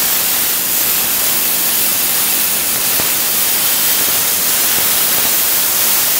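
Tenya Cut60C plasma cutter cutting through metal plate: a steady, loud hiss from the torch's arc and air stream, the air fed by the machine's built-in compressor.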